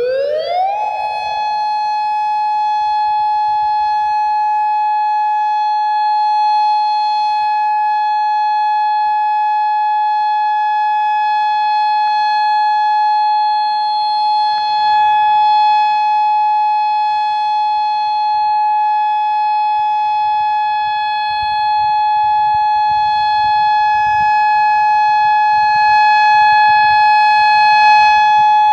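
Federal Signal Modulator MOD8032B electronic warning siren sounding a steady alert tone for a monthly test: its pitch rises quickly at the start, then holds one steady high tone with overtones.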